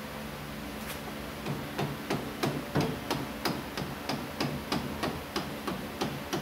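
Rubber mallet striking a steel punch held against a golf cart's front leaf spring mounting bolt, about three blows a second starting about a second and a half in, some with a short metallic ring. The blows drive out a bolt that is under a little spring pressure.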